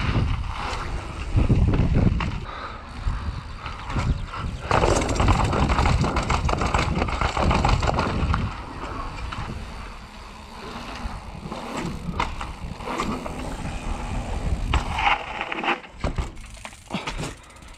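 Commencal Furious downhill mountain bike ridden fast over gravel and dirt: tyre noise on loose ground, with many short knocks and rattles from the bike over bumps and a low rumble of wind on the microphone. The noise dies down near the end as the bike slows.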